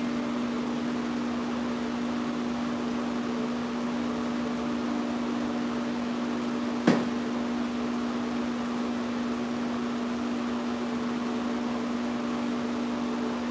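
Steady mechanical hum, one constant droning pitch with overtones, as from a fan or cooling unit running. A single sharp knock sounds about halfway through.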